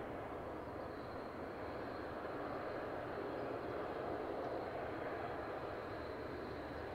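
Distant Airbus A400M's four Europrop TP400 turboprop engines running steadily at idle with the aircraft standing still: an even rumbling rush with a faint high whine.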